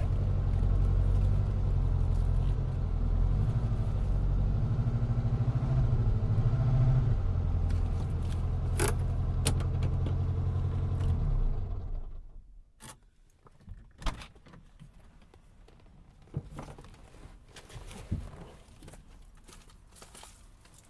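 Car engine idling steadily, then switched off about eleven seconds in, the low rumble stopping abruptly. A few quiet clicks and key-like rattles follow as the car is shut down.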